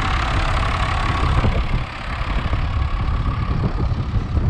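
Case tractor's diesel engine idling steadily while stopped.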